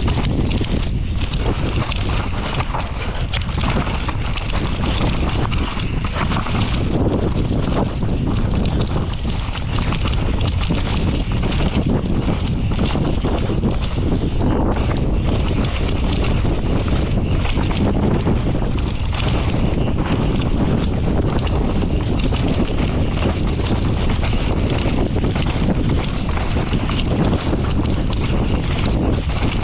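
Downhill mountain bike descending a rough trail at speed: a continuous clatter of tyres over dirt and rocks with the chain and frame rattling over the bumps.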